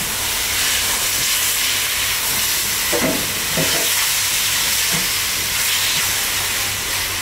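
Tomato purée sizzling with a steady hiss as it meets hot butter, ghee and oil with onions in a non-stick pot, while a spatula stirs it in.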